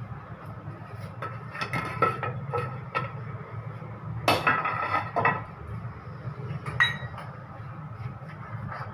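Aluminium pot lid being lifted off a pot of cooked dal and handled, with several metallic clinks and clanks, the loudest a little before the middle, some ringing briefly. A steady low hum runs underneath.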